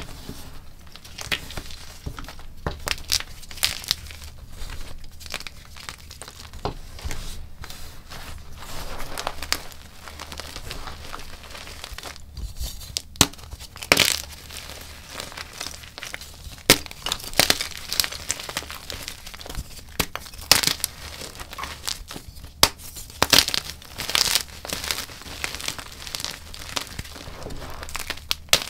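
Chunks of gym chalk being crushed and crumbled: a dense, uneven crunching and crackling broken by frequent sharp snaps as pieces break apart.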